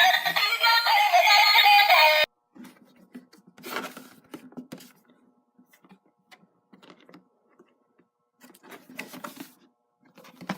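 Tinny electronic song with synthesized singing from a bump-and-go toy excavator's small built-in speaker, cutting off suddenly about two seconds in. Faint scattered noises follow.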